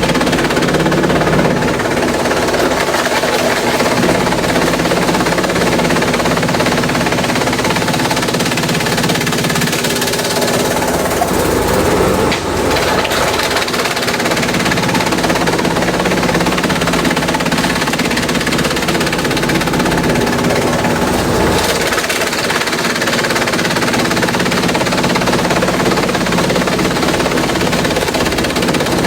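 Industrial bamboo shredder running and chewing through bamboo: a loud, steady mechanical din with a constant hum underneath.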